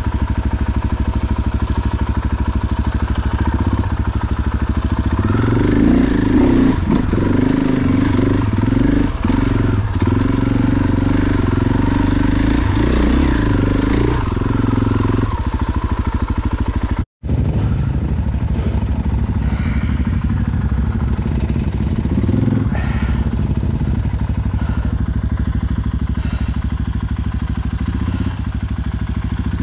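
Dirt bike engine running under way on single track, revs rising and falling with the throttle. The sound cuts out for an instant about 17 seconds in, then picks up again.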